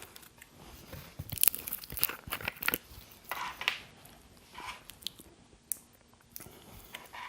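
Scattered soft crinkles, clicks and crunches, close up, from a burger and its paper wrapper being handled and eaten.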